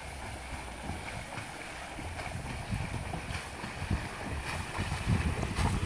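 A swimmer's butterfly strokes splashing through pool water, under a steady rumble of wind on the microphone.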